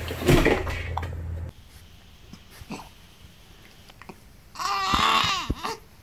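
Newborn baby fussing: one wavering, whiny cry lasting about a second, about five seconds in.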